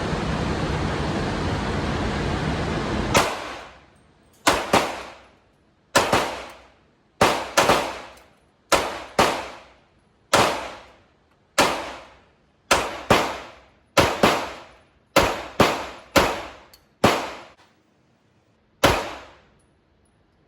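Glock 17C 9mm pistol firing about twenty shots at an uneven pace, singly and in quick pairs and triples, each crack followed by a short ringing tail. A loud steady rushing noise fills the first three seconds before the first shot.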